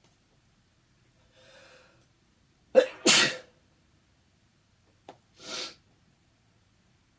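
A person sneezing from a cat allergy: a faint intake of breath, then a loud sneeze nearly three seconds in, and a second, quieter sneeze about two seconds after it.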